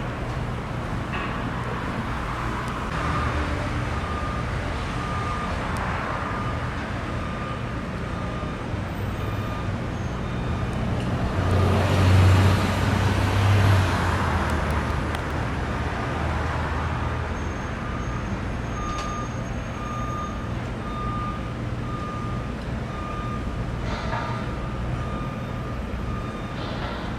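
Construction machinery running with a steady low rumble while a vehicle's backup alarm beeps over and over. The rumble swells louder for a few seconds about halfway through, when the beeping drops out briefly.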